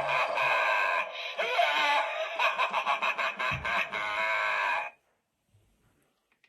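Repaired Magic Power Phantom Face Ripper Jr. animated Halloween prop playing its sound effect through its built-in speaker: a harsh, wavering sound with rapid clicks that cuts off suddenly about five seconds in.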